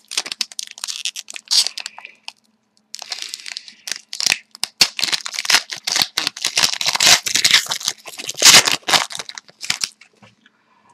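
Trading card pack wrapper being torn open and crinkled in the hands: a dense run of crackling and tearing, with a short pause about two seconds in.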